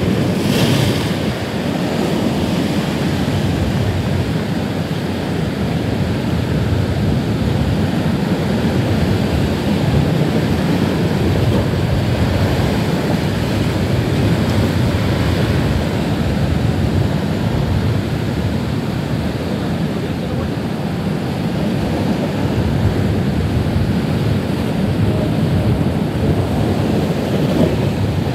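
Ocean surf washing steadily against the shore, with wind rumbling on the microphone.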